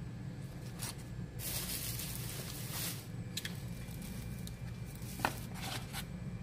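Handling of a small cardboard product box and the parts inside it: a rustle of packaging for about a second and a half, then a few light clicks and taps as small parts are picked out, over a steady low hum.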